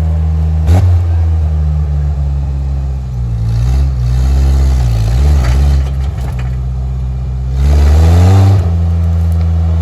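Off-road truck's engine running under load while crawling over logs, its pitch sagging and rising with the throttle, then a louder rising rev near the end that drops back abruptly. A single sharp knock a little under a second in.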